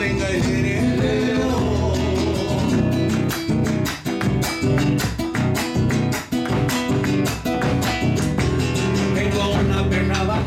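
Nylon-string classical guitar strummed in a steady rhythmic pattern, with a man singing along.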